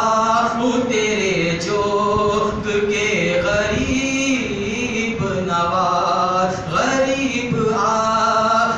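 A man's solo voice singing an Urdu devotional poem (manqabat) unaccompanied, in long notes that waver and bend in pitch with short breaks between phrases.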